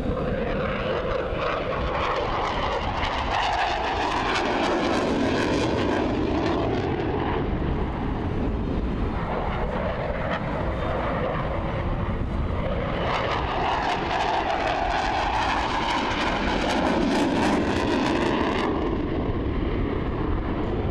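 Jet noise from a US Navy F/A-18 Hornet flying past, a loud steady rushing sound whose tone sweeps down and back up twice.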